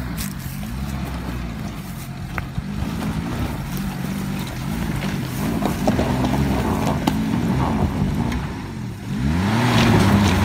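Daihatsu Feroza 4x4's engine working under load up a rocky hill climb, its revs rising and falling repeatedly, then dropping briefly about nine seconds in before revving up louder near the end.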